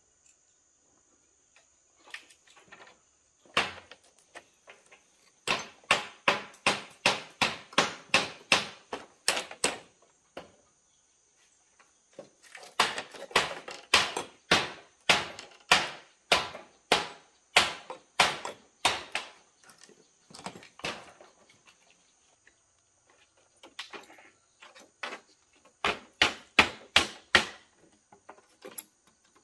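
Hammer blows driving nails, in quick runs of about three strikes a second, three long runs with pauses between and a few single blows near the start.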